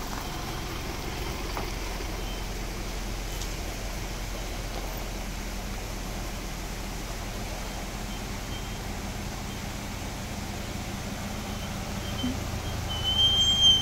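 SUV engines running at crawling speed on a rough dirt track. The noise grows louder near the end as a Mitsubishi Pajero TR4 comes up to a log bridge, with a thin high squeal.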